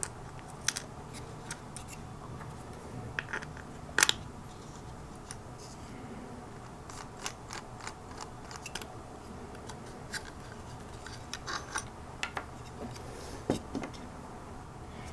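Small plastic clicks and taps as 3D-printed plastic gears are handled and fitted onto steel axle pins in a plastic gearbox plate. The clicks are scattered and irregular, the sharpest about four seconds in.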